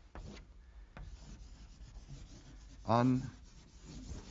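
Chalk scratching on a blackboard as a word is written by hand, with a tap near the start. A short voiced sound from a man comes about three seconds in.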